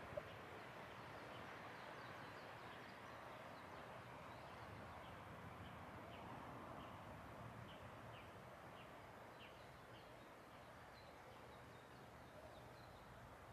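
Faint outdoor ambience with small birds chirping, short high falling notes scattered through it, and a single click at the very start.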